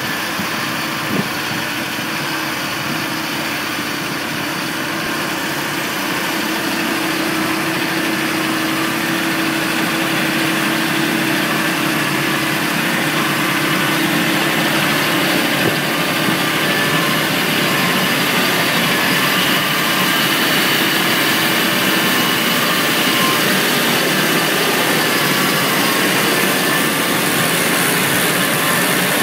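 Claas Arion 640 tractor running at steady revs while it drives a Keenan mixer wagon that is unloading silage from its side chute: a steady engine drone with a mechanical whine, growing a little louder as it goes, and one short knock about a second in.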